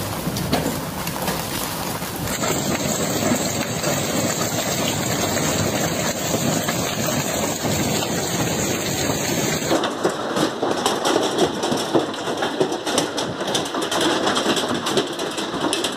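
Heavy hail pounding down: a dense, continuous clatter of hailstones hitting the ground and hard surfaces. The sound changes abruptly about two seconds in and again about ten seconds in. In the later part, sharp separate impacts stand out from the roar.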